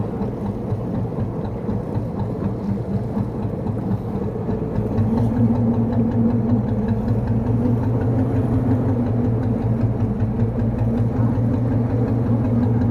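A fishing boat's engine running steadily with an even hum, getting louder about five seconds in.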